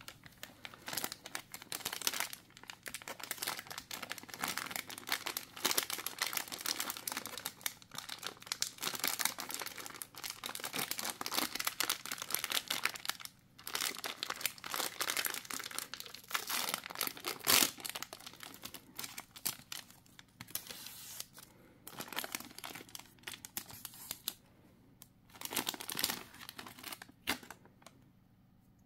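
Crinkling and tearing of an ice cream bar's paper-like wrapper as hands peel it open, a dense run of crackles that thins to a few separate rustles near the end.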